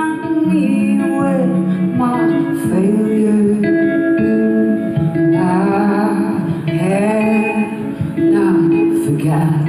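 Live band music: a woman singing slow, drawn-out phrases over an electric guitar.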